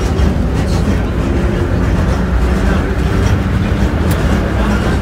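Vintage New York City subway train, heard from the open doorway between its cars: a loud, steady low rumble of the running train with a faint hum over it.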